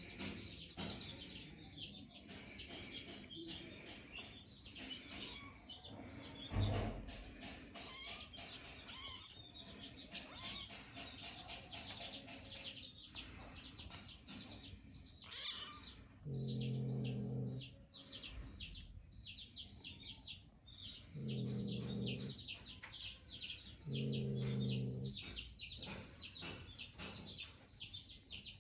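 A cat's low, steady growling calls, three of them about a second each in the second half, over a continual high-pitched chirping. There is one soft knock early on.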